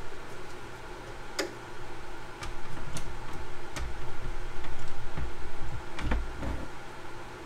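Thin plastic RC wing pieces being handled and fitted together by hand: scattered light clicks and ticks, with dull low bumps against the workbench in the middle part.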